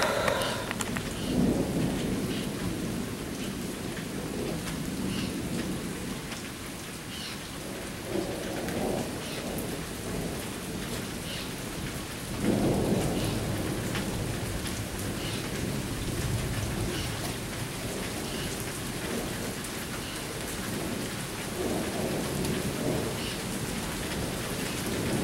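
Steady rain falling, with thunder rolling and rumbling several times. The longest and loudest rumble comes about halfway through.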